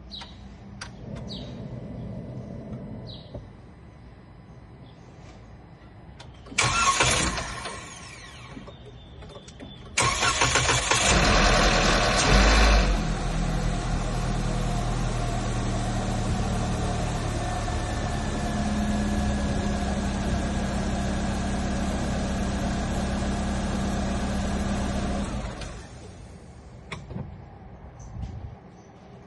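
Jeep Renegade's 1.8 E.torQ four-cylinder engine: a short loud burst about seven seconds in, then the engine starts about ten seconds in, noisy at first for a few seconds before settling to a steady idle, and is switched off near the end. This is the start-up noise it makes after standing, cause unknown to the owner.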